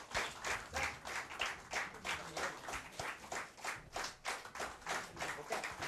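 Audience clapping, the claps coming in a fairly even rhythm of about four a second.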